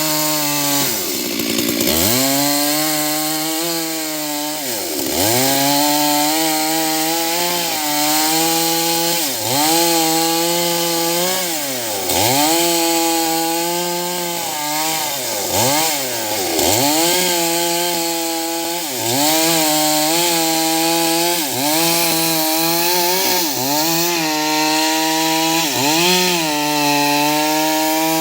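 STIHL MS 382 two-stroke chainsaw cutting into a large tree at high revs, its engine note sagging under load and climbing back again and again, every second or few.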